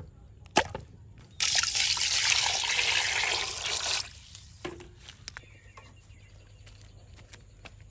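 Water pouring into a metal cooking pot onto two pieces of raw cow udder, a steady rush lasting about two and a half seconds and starting about a second and a half in. A single knock comes just before, and a few light knocks follow the pour.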